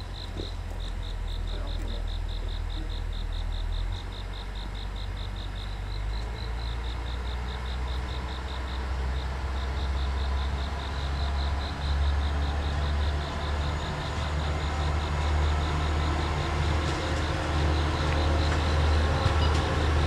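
A multiple tie tamper's diesel engine running as the machine moves slowly along the track, a low rumble that grows louder as it comes closer. A rapid pulsed insect chirping carries on above it.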